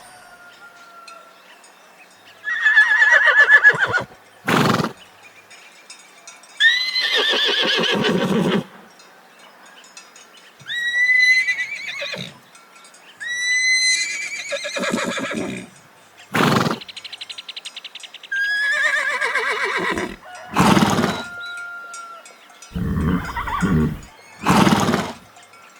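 Horses neighing and whinnying: a series of separate calls with short gaps between them, some long and wavering and falling in pitch, others brief.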